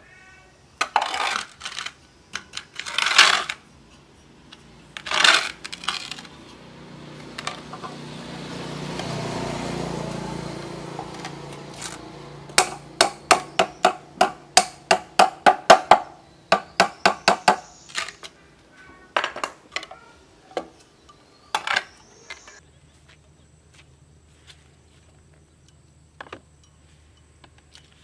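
Hammer blows on a homemade pump built from a washing-machine motor stator and PVC pipe: scattered metallic knocks and clinks, then a fast run of taps, about four a second for some three seconds, with a swelling rush of noise in the middle.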